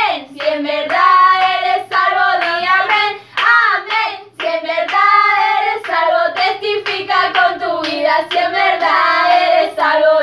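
Several women singing a Spanish children's praise song together, with hand clapping.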